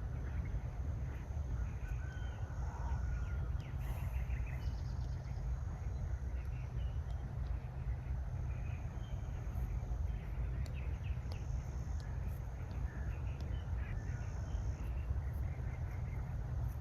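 Steady outdoor noise from rain and a low rumble, with birds calling now and then throughout.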